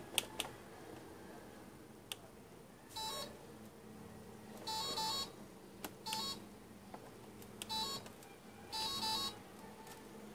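Robot vacuum cleaner's electronic beeper sounding five short groups of beeps a second or two apart, each group a few quick tones, with a few sharp clicks near the start.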